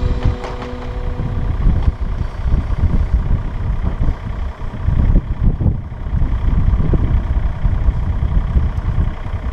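John Deere 2032R compact tractor's three-cylinder diesel engine running, its level rising and dipping unevenly.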